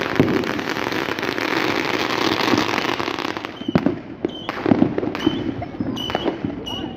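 Fireworks going off: a dense run of crackling for about the first three and a half seconds, then separate sharp bangs roughly every half second.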